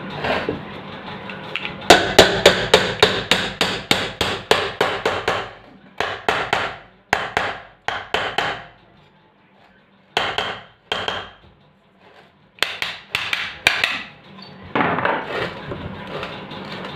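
Hammer blows on the metal of an electric fan motor during a bearing change. A fast run of about fifteen sharp knocks, roughly four a second, comes first, then several shorter groups of knocks with brief pauses between them.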